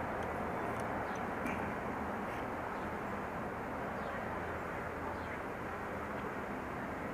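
Steady, even background noise like outdoor ambience or distant traffic, with a few faint high chirps.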